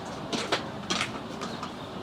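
A few short, sharp clicks over steady outdoor background noise.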